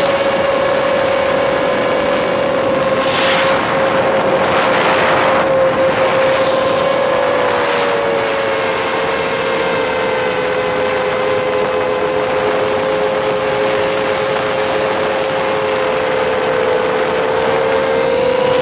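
The brushless motors and propellers of a 7-inch FPV freestyle quadcopter in flight, heard from a camera mounted on its frame. They make a steady loud whine with two close pitches that drift apart and come back together, with brief rushes of noise around three to eight seconds in.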